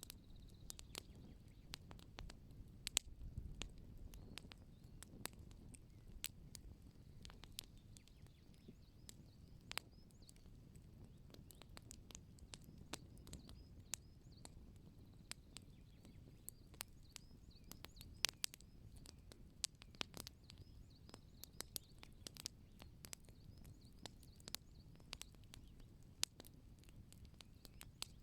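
Wood fire crackling: irregular sharp pops and snaps, a few of them much louder than the rest, over a faint low rumble of burning.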